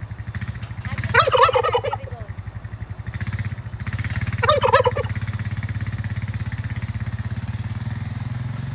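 A turkey gobbling twice, each a rapid rattling call of about a second. Under it a four-wheeler's engine runs steadily with a low pulsing hum.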